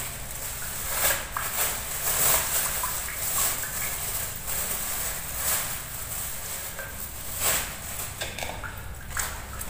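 Thin plastic bag rustling and crinkling in irregular bursts as it is handled and raw chicken pieces are emptied from it.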